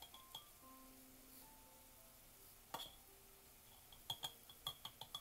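Metal spoon clinking against a glass jar while scooping out powder: light, ringing taps, a few at the start, one near the middle and a quick run of several in the last second.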